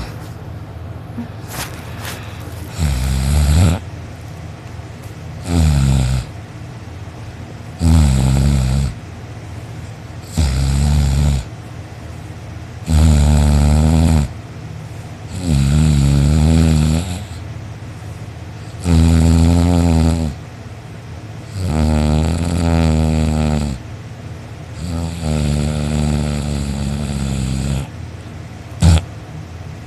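A sleeping person snoring loudly: about nine snores, one every two and a half to three seconds, each a rasping rattle, the later ones longer. A short sharp click comes near the end.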